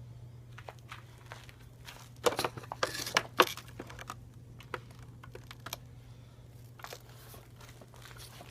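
Scattered clicks and knocks from handling the housings of two lightweight upright vacuum cleaners that are switched off, with the sharpest clacks bunched about two to three and a half seconds in. A low steady hum lies underneath.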